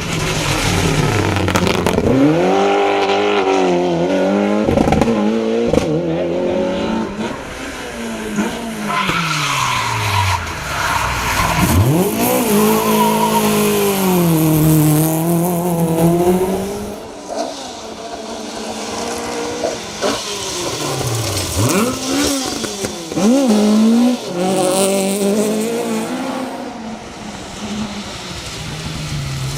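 Rally car engines revving hard as the cars run a special stage, the pitch climbing and dropping through gear changes several times over.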